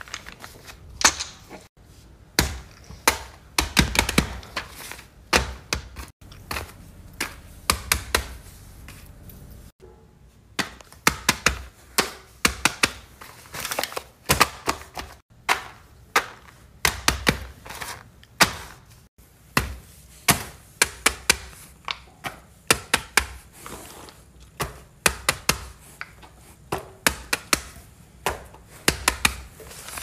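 Rapid, irregular tapping and knocking of hands and fidget toys on a paper trading board, several sharp taps a second in clusters with short pauses.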